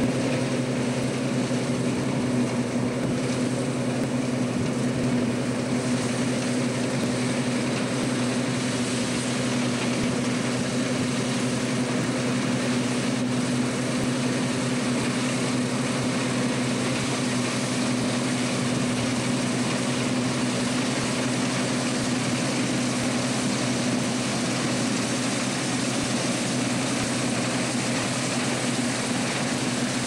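Deutz-Fahr M35.70 combine harvester running steadily under load while harvesting. Its engine gives a steady hum under the broad noise of the header and threshing machinery.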